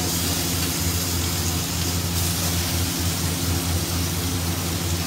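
Marinated river prawns frying in hot oil in a karahi: a steady sizzle over a constant low hum.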